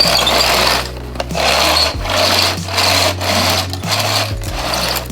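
Paper being ripped and crumpled by hand in repeated rough bursts of about a second each, with short pauses between them.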